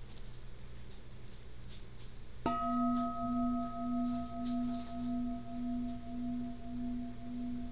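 A singing bowl, struck once with a wooden striker about two and a half seconds in, invited as a mindfulness bell. It rings on with a low hum that swells and fades about twice a second, over fainter higher tones that die away.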